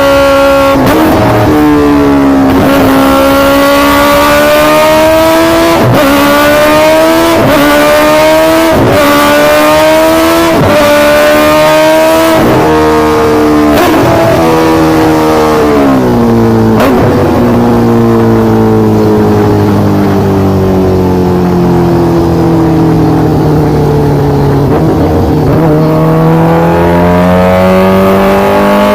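High-revving superbike engine accelerating hard through the gears. The pitch climbs and drops sharply at each upshift, about every one and a half seconds. About halfway through it falls in a long slow slide as the engine eases off, then rises again near the end.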